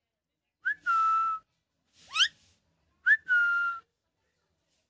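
Ringneck parakeet whistling: two long, level whistles, each opened by a short rising chirp, with a quick upward-sweeping whistle between them.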